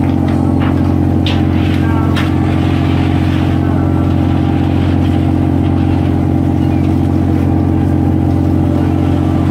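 A large engine running steadily with a deep, unchanging drone, with a few sharp knocks in the first couple of seconds.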